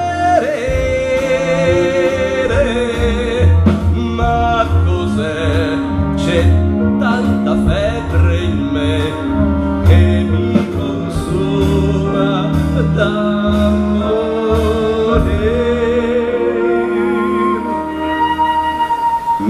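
A man sings an operetta song over instrumental accompaniment, holding long notes with a wide vibrato.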